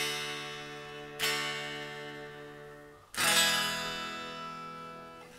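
Unplugged solid-body Les Paul electric guitars strummed, their chords ringing and slowly dying away. An Epiphone goldtop's open D chord is strummed and then strummed again about a second in. About three seconds in, a Gibson Les Paul Standard's chord is strummed and left to ring.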